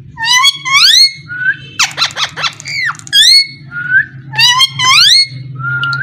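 Pet parakeet whistling: repeated upward-sliding whistles in runs of two or three, with a burst of short rasping notes about two seconds in. A low steady hum runs underneath.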